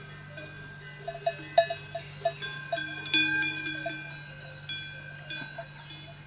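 Metal bells clanking irregularly, each strike ringing on, over a steady low hum.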